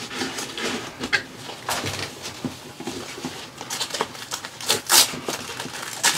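Nylon backpack webbing and fabric rustling and scraping as hands thread a hydration bladder's drinking hose through a keeper on the shoulder strap. There are a few sharper rasps, the loudest around five seconds in and again at the very end.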